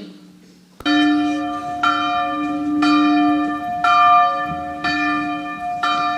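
Church bell tolling about once a second, six strikes starting about a second in, each one ringing on into the next.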